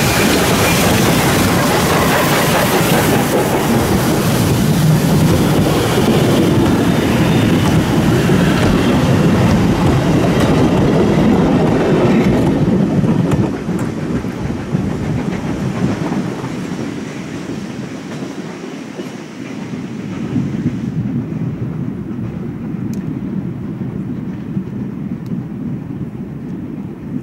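Steam locomotive and its train of carriages passing close by on the track. The sound drops sharply about thirteen seconds in and then fades as the train moves away.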